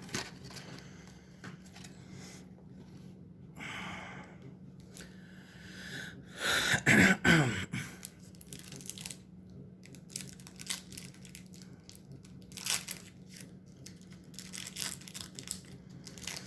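Trading card pack wrappers crinkling and tearing and cards being handled, in short scattered rustles. A person coughs once, the loudest sound, about seven seconds in. A faint steady low hum runs underneath.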